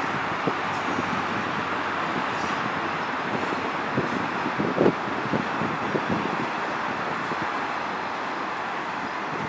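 Freight train of autorack cars rolling past, a steady rumble with a few clanks about halfway through and brief high-pitched wheel squeals.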